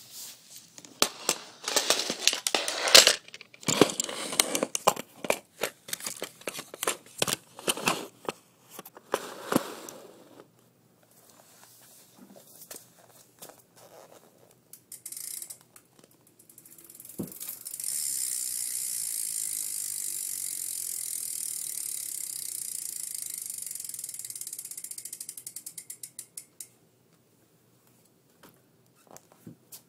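BMX rear hub's freewheel pawls clicking as the back wheel of a United bike is spun by hand. For the first ten seconds there are irregular clicks and knocks as the wheel is worked. Then the wheel coasts with a fast, even buzz that slows into separate clicks and stops.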